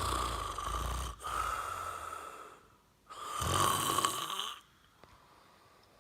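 A man snoring: one long snore that breaks off briefly about a second in and carries on, then a second snore about three and a half seconds in. It is heavy snoring that the uploader fears is a sign of sleep apnea.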